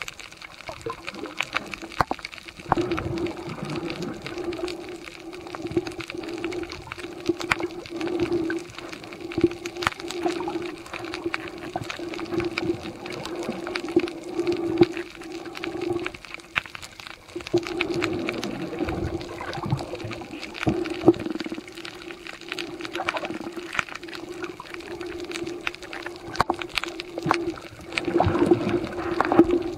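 Underwater sound picked up by a camera on a shallow coral reef: a steady low hum that breaks off briefly a few times, under many scattered sharp clicks and crackles.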